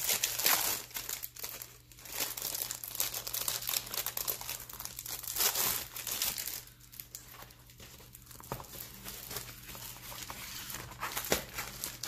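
Clear plastic packaging sleeve crinkling as a rolled diamond painting canvas is pulled out of it and unrolled, with rustling of the canvas. The crinkling is loudest in the first half and softer after that.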